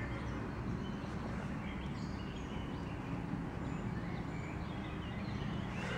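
Woodland ambience: a steady low background noise with a few faint, short bird chirps scattered through it.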